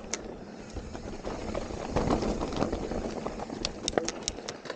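Mountain bike rolling over a dirt trail: tyre noise and frame rattle, louder about two seconds in, with a quick series of five sharp clicks near the end.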